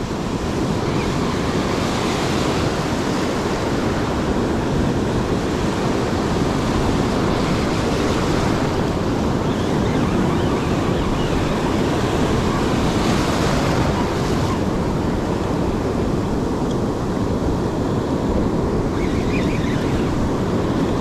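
Ocean surf breaking and washing up the beach with wind on the microphone: a steady rush that swells now and then as waves come in.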